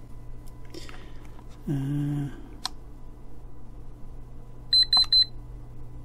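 Handheld network/USB cable tester's built-in beeper giving three short, high beeps in quick succession near the end, its signal as the function button is held down to change mode.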